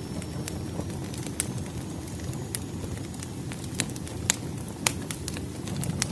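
Campfire crackling: a steady low rumble of burning with scattered sharp pops and snaps, the loudest about four and five seconds in.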